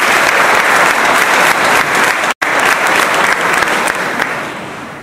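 Audience applauding, the clapping dying away near the end, with a momentary dropout a little over two seconds in.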